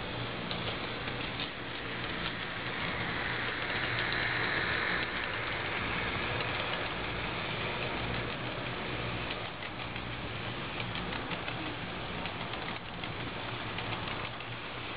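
Model freight train rolling over a layout bridge: a steady mechanical rattle of small wheels on track with light ticking over a low hum, loudest a few seconds in as the locomotive passes.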